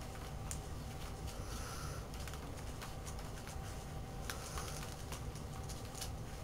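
Scattered, irregular computer keyboard clicks over a steady low hum.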